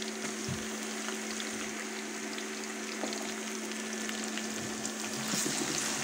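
Sliced onions and crushed garlic sizzling in hot oil in a karahi, being stirred with a wooden spatula. The frying hiss is steady over a low steady hum and grows louder near the end.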